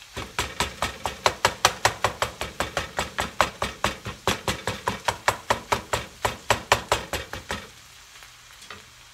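Spatula knocking rapidly against a frying pan as it chops up browned ground sausage, about five sharp knocks a second, stopping about seven and a half seconds in.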